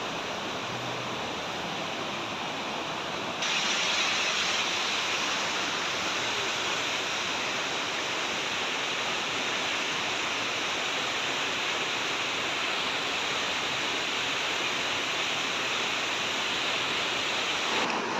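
Rushing river water, a steady dense rush that jumps suddenly louder and brighter about three seconds in and then holds.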